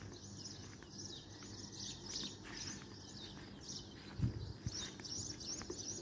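Small birds chirping, a steady run of short high chirps, over a low background hum. A low thump about four seconds in.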